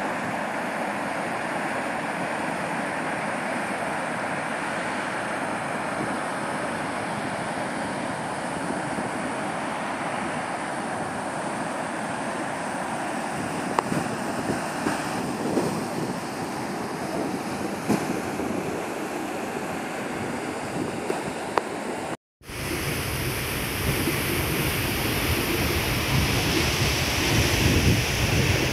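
Steady rush of lake water spilling over the dyke's concrete spillway, mixed with wind on the microphone and a few small handling clicks. After a sudden cut about 22 seconds in, a louder, deeper steady rushing noise takes over.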